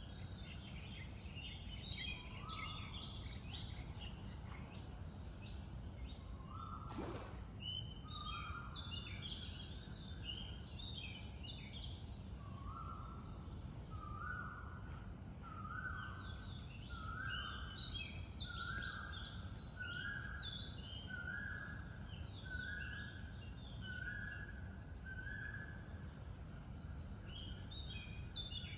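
Several birds chirping and calling at twilight, with dense short high notes throughout. One bird repeats a steady, flat note about once a second in a long series through the middle. A steady low rumble runs underneath.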